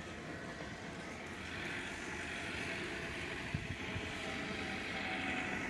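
Steady drone of a distant tractor engine, slowly growing louder.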